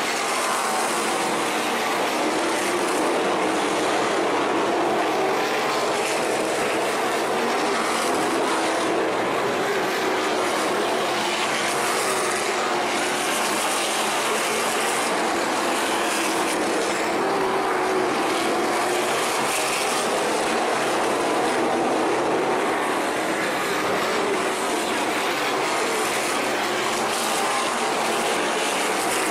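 A field of sprint cars racing, their engines running hard together in one steady, unbroken sound whose pitch wavers up and down as cars go by.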